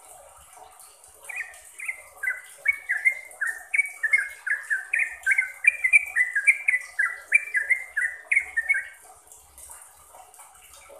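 Yellow-vented bulbul (trucukan) singing a quick run of short falling notes, about three or four a second. The song starts about a second in and stops near the end.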